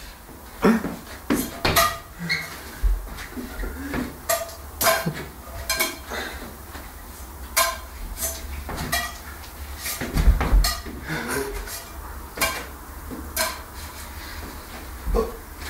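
Metal frying pans clattering and knocking as a pancake is batted back and forth between them: many sharp, irregular hits, one or two a second, some with a brief metallic ring.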